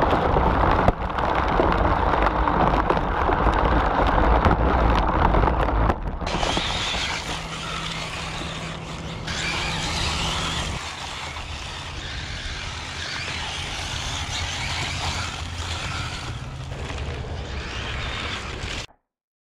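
Electric RC rally car running fast on gravel. For about the first six seconds it is heard close up and loud, with a heavy rumble from the chassis and tyres. Then the sound changes to the car heard from farther off, a hissing scrabble of tyres on loose gravel as it slides, which cuts off suddenly just before the end.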